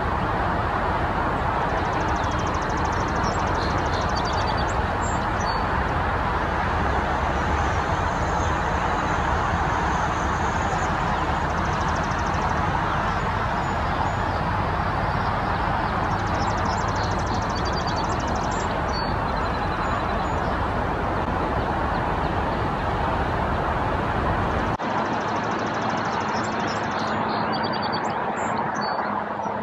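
Steady outdoor rumble and hiss with no clear source, and faint high trills now and then. The low rumble drops away suddenly near the end.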